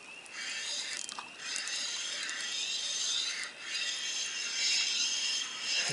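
Fishing reel giving a rapid ratcheting whirr in several stretches with short breaks, as a big fish is fought on the line.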